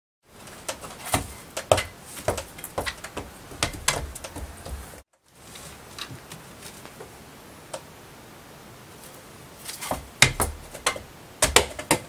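Irregular light taps, knocks and scrabbling as a kitten bats a small toy basketball around a cat-tree platform and hoop and claws at the post. The taps come in quick clusters, thin out after a short break about five seconds in, then pick up again near the end.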